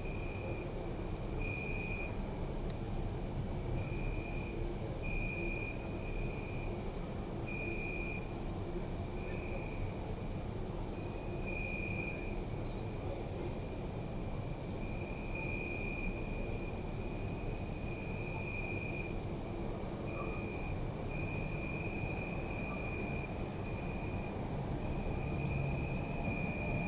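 Crickets chirping. A very high-pitched trill comes in runs of a second or two broken by short pauses, and a lower chirp repeats on and off beneath it. Under both lies a steady low background rumble.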